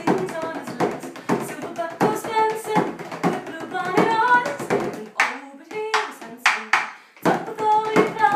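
A woman singing a song while beating a steady rhythm on a hand-held frame drum. A little past the middle the voice thins out for about two seconds while the drum strokes carry on, then the singing comes back.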